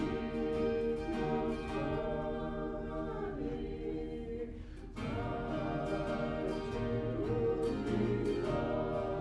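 A translated gospel song sung in Inupiaq by a group of voices over instrumental accompaniment. A sung phrase fades out about three to four seconds in, and the next begins at about five seconds.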